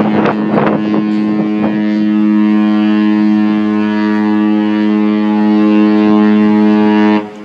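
Cruise ship's horn sounding one long, steady blast, deep and rich in overtones, that cuts off sharply near the end.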